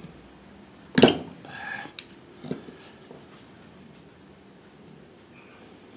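Screwdriver tip clicking and scraping against the metal gland of a hydraulic lift cylinder as the oil seal is pried out of its groove: a sharp click about a second in, a brief scrape, then a lighter knock about a second later.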